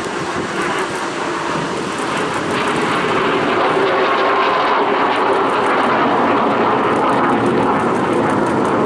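Jet noise from a MiG-17 (Polish-built Lim-5) turbojet flying a display. It grows louder over the first few seconds, then holds steady, with a faint falling whine midway as the jet passes.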